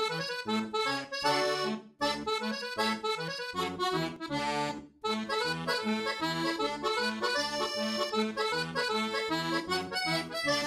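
Instrumental theme music over a bass line alternating between two notes about twice a second, with two short breaks, ending just before speech begins.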